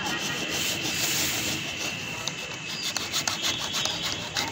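Orange HDPE plastic conduit pipe rubbing and scraping as it is handled over steel rebar mesh, with scattered light clicks and knocks in the second half.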